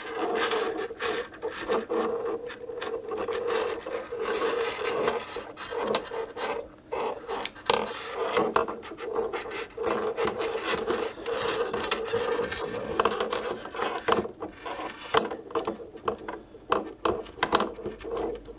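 Hands handling a small plastic Wi-Fi antenna base and threading its cables through it: irregular rubbing, scraping and small plastic clicks, over a steady low hum.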